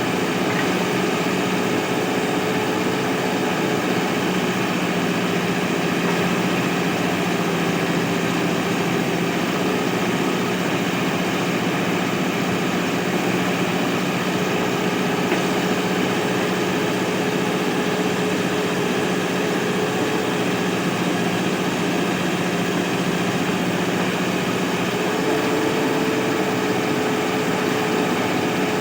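Diesel engine of a Mahindra backhoe loader running steadily, a constant low hum with no revving.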